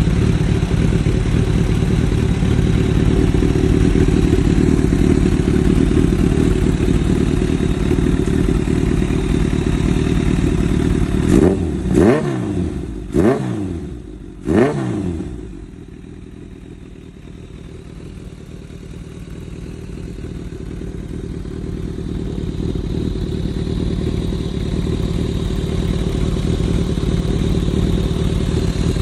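Motorcycle engine idling steadily, then revved three times in quick succession about halfway through; afterwards the sound drops and slowly grows louder again. The engine is running on a freshly replaced spark plug after the old one fouled out.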